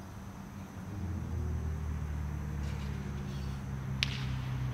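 Steady low engine hum of road traffic. Near the end comes one sharp crack as the pitched baseball arrives at home plate.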